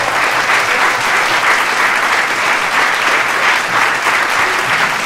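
Café audience applauding, a steady spell of clapping at the end of a live acoustic song.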